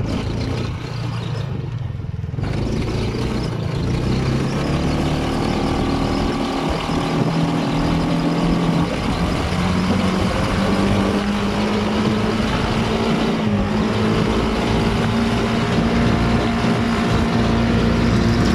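Sand buggy engine running under power while driving over dunes. From about two seconds in its pitch climbs steadily as the buggy speeds up, getting a little louder toward the end.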